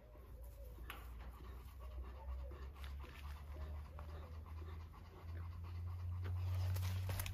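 Young black panther panting with its mouth open, a quick regular rhythm of about two breaths a second, over a low rumble that swells in the second half.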